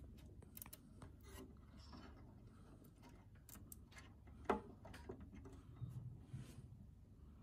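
Faint rubbing and small scattered clicks of fingers pressing a chip into its socket on a circuit board, the pins working into the socket contacts, with one sharper click about four and a half seconds in.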